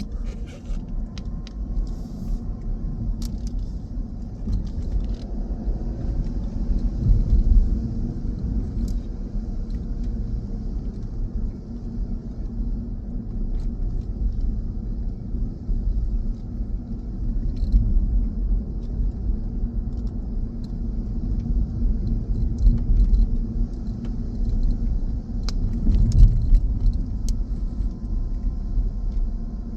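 Car driving along a road: steady low road and engine rumble that swells a few times, with a few light clicks and a faint steady high hiss.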